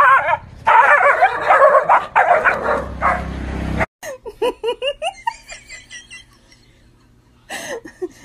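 A dog barking and yelping in rapid, high, wavering bursts, alarmed by a toy tiger held over it. About four seconds in it cuts off abruptly, and softer, quicker high-pitched laughter-like sounds follow.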